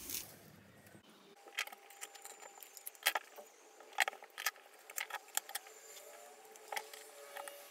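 Double-sided tape being pulled off its roll and pressed onto a board by gloved hands: faint, scattered clicks and crackles.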